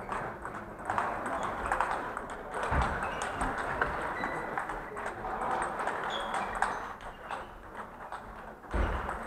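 Table tennis balls clicking off bats and tables from rallies on several tables, ringing in a large hall, with a couple of dull thuds.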